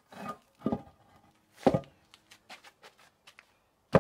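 Knocks, thumps and scrapes of hands-on patio-slab work: a paving slab being shifted into place and a spade picked up off the paving. The loudest thump comes just before two seconds in, a second sharp knock right at the end, with lighter taps and scrapes between.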